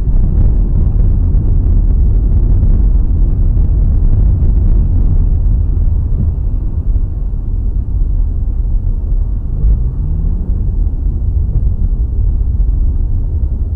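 Loud, steady low rumble of road and engine noise heard inside a moving car on a wet road, with a brief rising tone about ten seconds in.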